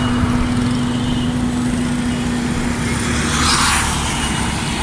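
Road and engine noise of a car driving along a paved road, heard from the car. Another vehicle passes close by about three and a half seconds in.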